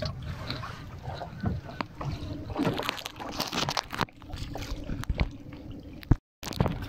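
Water sloshing and splashing around a small boat, with irregular knocks and clatter and a faint steady hum beneath. The sound cuts out briefly near the end.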